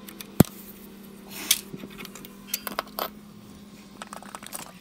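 Metal clinks and taps of a socket wrench and loose nuts against the cast-iron manifold while the manifold nuts are undone. One sharp clink about half a second in is the loudest, with a few lighter clinks after it and a quick scatter of small clinks near the end.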